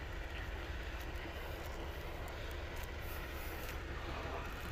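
Steady low rumble of wind buffeting the microphone, with a few faint light ticks of handling over it.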